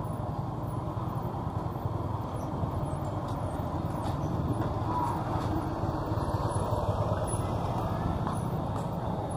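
Steady rumble of street traffic and a vehicle engine, growing a little louder in the middle.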